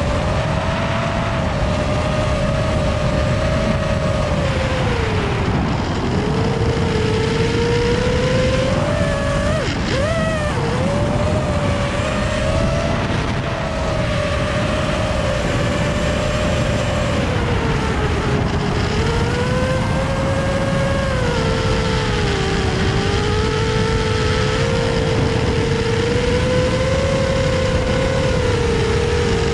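Quadcopter drone's electric motors and propellers whining, the pitch wandering up and down with the throttle over a steady rushing noise. The pitch dips and jumps back up quickly about ten seconds in.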